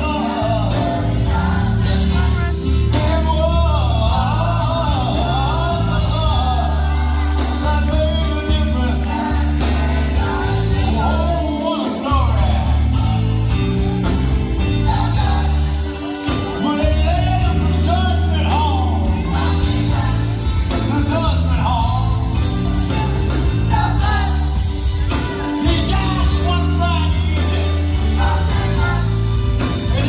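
Gospel choir singing with a band, over a strong, steady bass line that drops out briefly about twelve and sixteen seconds in.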